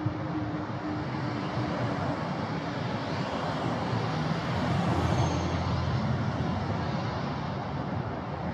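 City street traffic, with one vehicle passing close by: its noise swells to its loudest about five seconds in and then fades away.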